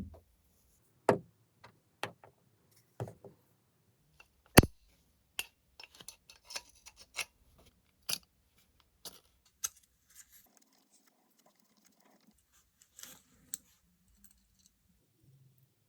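Sharp metallic clicks and clinks at irregular intervals, the loudest about four and a half seconds in: rifle parts being handled and fitted together.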